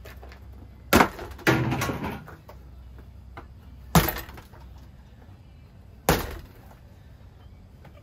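Objects thrown into a spinning Harbor Breeze ceiling fan, struck by its blades with sharp smacks, four times. After the second hit, debris clatters for about a second.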